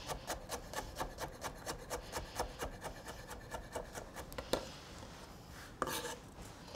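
Chef's knife rapidly chopping cornichons on a wooden cutting board: fast, even knocks of the blade on the board, about five a second. The chopping stops about four and a half seconds in, and the flat of the blade then scrapes briefly across the board to gather the pieces.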